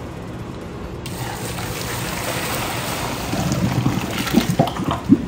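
Hot pasta cooking water poured from a pot through a metal colander into the sink. It starts abruptly about a second in and splashes louder near the end.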